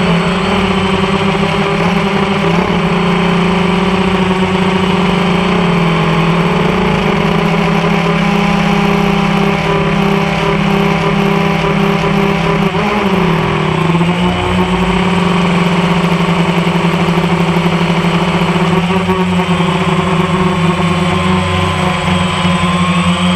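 Drone's electric motors and propellers humming steadily, as picked up by its onboard camera, over a rush of wind. The pitch dips briefly about halfway through and shifts again near the end as the throttle changes.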